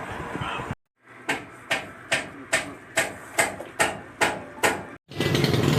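A run of about ten sharp, evenly spaced knocks, a little over two a second, each with a short ringing tail, starting about a second in and cut off shortly before the end.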